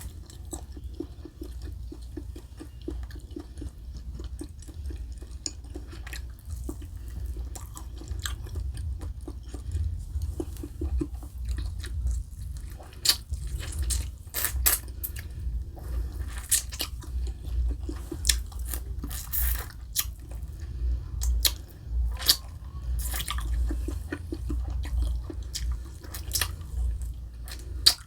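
Close-miked chewing of food: a steady rhythmic chew in the first half, then sharp, crisp crunches and mouth clicks come thick and fast from about halfway on.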